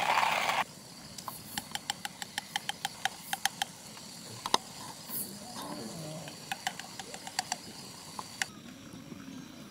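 A loud hiss from the gas camp stove cuts off abruptly about half a second in. Then a spoon clinks quickly and repeatedly against a ceramic mug, about three clinks a second, as a hot drink is stirred, and the clinking stops near the end.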